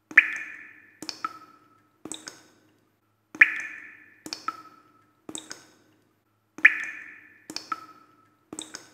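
A rhythmic pattern of short, ringing pings and clicks: a louder ping about every three seconds, with two or three lighter, shorter ones between.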